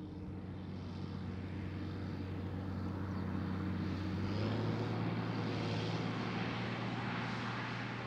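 The Big-A 2800 floater's 8.3-litre turbocharged straight-six Cummins diesel engine is running steadily as the machine drives along. It grows louder and rises slightly in pitch about halfway through, then eases off a little near the end.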